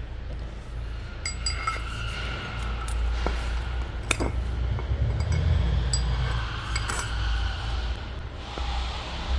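Scattered metallic clinks and taps of tools and metal drive-train parts being handled, some ringing briefly, over a steady low rumble.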